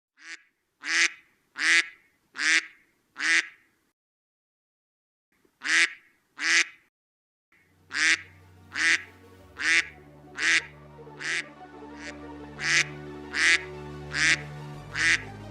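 A run of short, evenly spaced duck quacks, about one every three-quarters of a second. After a pause they start again, and from about halfway in they are joined by music with steady low notes, the quacks keeping time with it.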